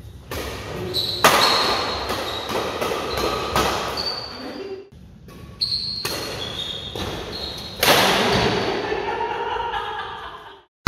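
Badminton doubles rally in a reverberant indoor hall: sharp racket-on-shuttlecock hits, short high shoe squeaks on the court and players' voices. The sound fades out near the end.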